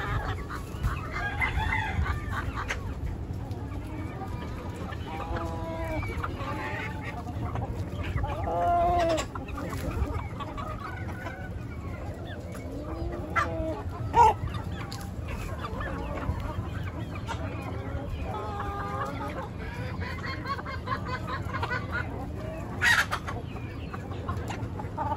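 A flock of backyard chickens clucking and calling while they feed, with a rooster crowing about a third of the way in. A sharp knock sounds about halfway through and another near the end.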